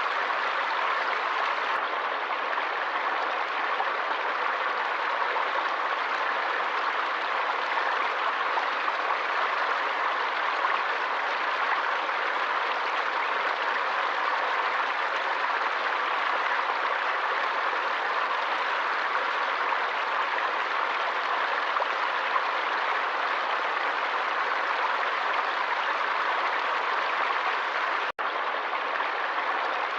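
Forest stream water flowing steadily, an even rushing with no change in strength. It cuts out for an instant near the end.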